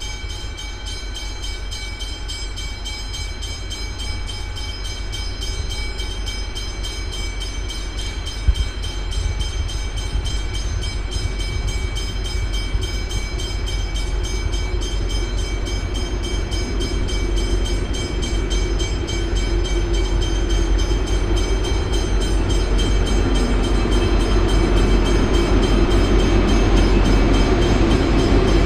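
V/Line N class diesel-electric locomotive approaching with its passenger train, a low rumble and engine sound growing steadily louder as it nears. A single sharp click about eight and a half seconds in.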